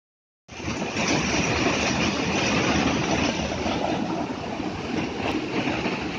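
Water of a waterfall stream rushing and splashing through a narrow channel between rocks, a steady loud rush that starts about half a second in.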